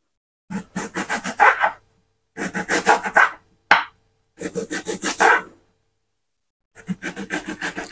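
Kitchen knife dicing an onion on a wooden chopping board: quick runs of sharp strokes, several a second, in four bursts with short pauses between.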